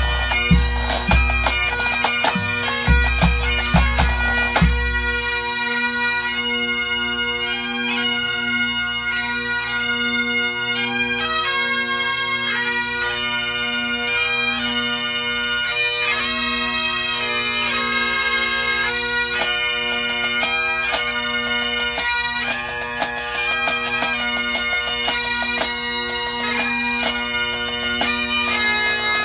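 Pipe band of Highland bagpipes and drums playing a tune. The bass drum beats and snare strokes sound for about the first five seconds, then drop out, leaving the pipes' steady drones under the chanter melody.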